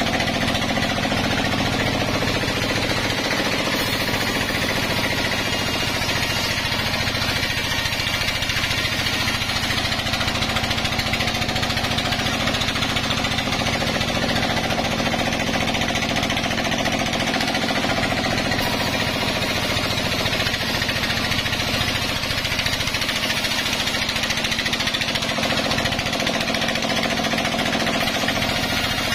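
Band sawmill running, its vertical band saw blade ripping lengthwise through a log. It makes a loud, steady mechanical din of motor and blade, unbroken throughout.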